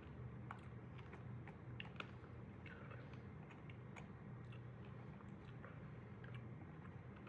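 Spoon scooping passion fruit pulp out of the opened shell: faint soft squelches and scattered light clicks of the spoon against the shell, over a low steady hum.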